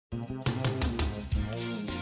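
Intro music for a TV programme, starting a moment in, with a bass line, held notes and a regular beat.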